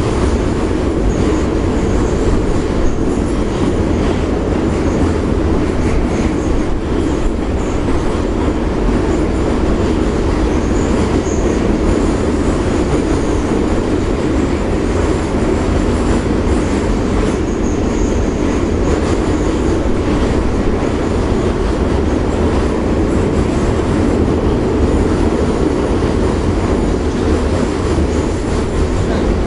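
Metro train running between stations, heard from inside the passenger car: a steady loud rumble of wheels and running gear in the tunnel, with faint high squeals now and then.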